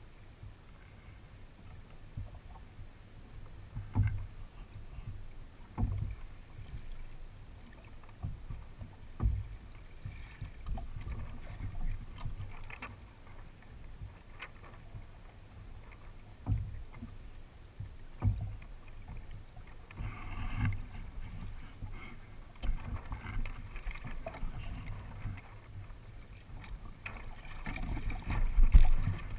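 Water lapping and sloshing against the hull and outrigger float of a Hobie Adventure Island sailing kayak moving over calm water. Several low thumps come at irregular intervals, the loudest near the end.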